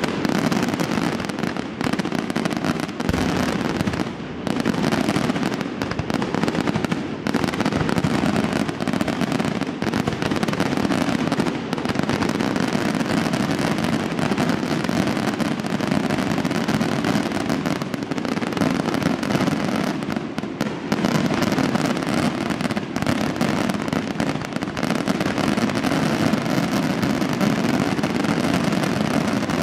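Dense, unbroken barrage of aerial firework shells bursting, with overlapping bangs and crackling and no pauses.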